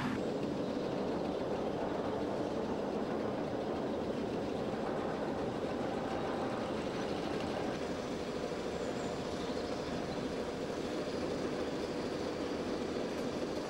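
Steel roller coaster train (Oblivion, a Bolliger & Mabillard dive coaster) running along its track: a steady rolling rumble.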